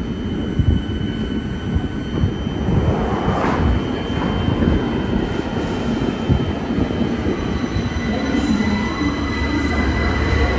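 London Underground 2009 Stock Victoria line train at the platform, its doors shutting, then pulling away with a rising motor whine as it accelerates near the end.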